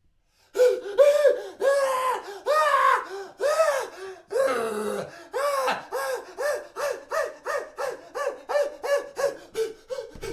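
A man crying out in pain in a long run of short 'ah' yelps, each rising and falling in pitch. They start about half a second in and come quicker toward the end.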